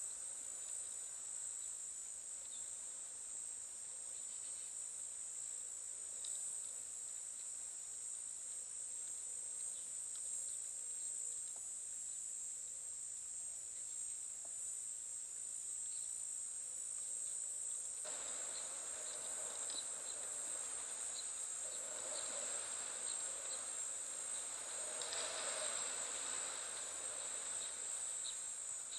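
Steady high-pitched drone of insects shrilling in dry bush. About two-thirds of the way in, a fuller hiss-like background with faint short ticks joins it.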